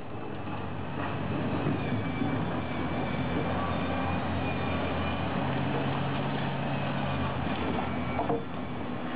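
Large hydraulic mining excavator's diesel engine running steadily under load as its bucket digs into a pile of blasted rock, with rock scraping and grinding against the bucket.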